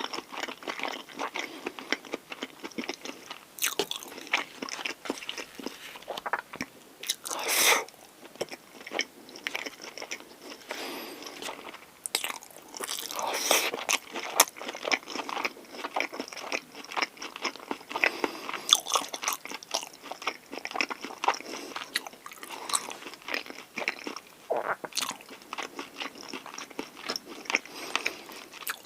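Close-miked eating of a pork galbi convenience-store lunch box: a steady run of bites and chewing with no talking, with a louder stretch about a third of the way in.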